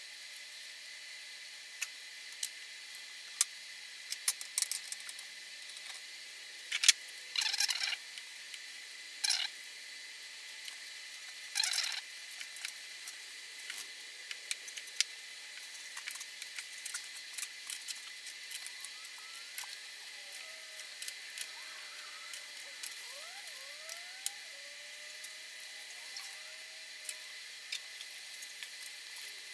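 Old soft plastic fishing worms being cut up into small pieces: scattered small clicks and snips, with a few longer rustling scrapes about seven, nine and twelve seconds in.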